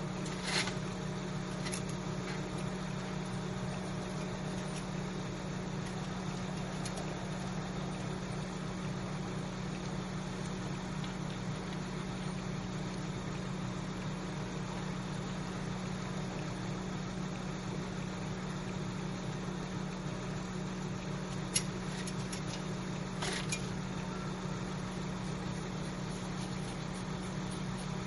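An engine idling steadily, a low even hum that does not change, with a few brief sharp clicks or knocks, one about half a second in and two close together later on.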